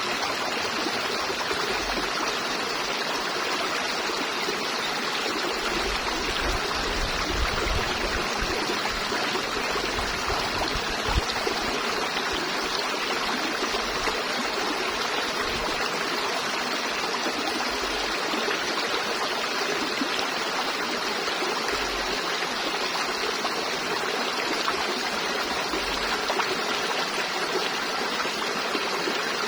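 River water flowing steadily over rocks, a continuous rushing and babbling.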